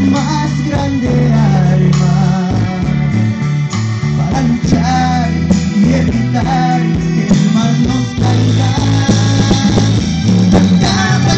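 A man singing into a microphone over amplified music with bass and guitar, played through a party PA sound system.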